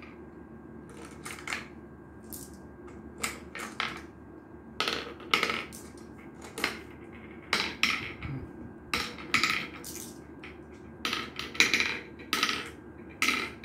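Glass marbles clicking as they are dropped one at a time into the carved pits of a wooden Gurpale board, a mancala-type game with two rows of seven pits. The clicks come irregularly, sometimes several in quick succession.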